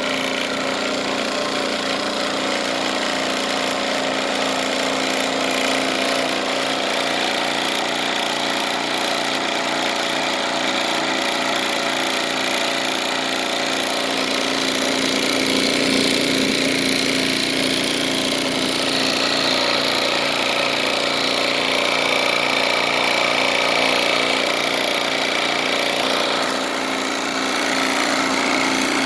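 Homemade vibratory particle separator running: its vibration motor hums steadily while the shaking screen bounces flakes of wood shavings across the metal sieve.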